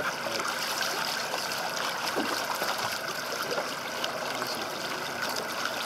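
Steady rushing and trickling of sea water against the boat's side, with splashing from a black marlin held alongside at the surface.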